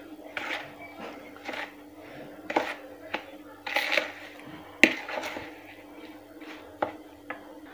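Metal spoon scraping and tapping in a plastic bowl while stirring roasted semolina and curd into a thick batter, with one sharper knock about five seconds in. A faint steady hum runs underneath.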